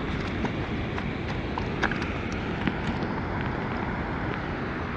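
Steady rush of a river riffle with wind on the microphone, and a scattered run of light clicks and knocks of stones on the rocky bank as a landed catfish is handled, stopping about three and a half seconds in.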